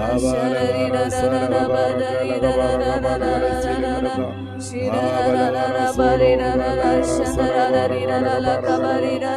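A slow hymn sung by voices in long held notes, with sustained low notes beneath that change every couple of seconds.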